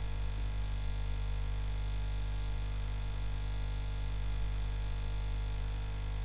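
Steady electrical hum with many evenly spaced overtones, unchanging throughout.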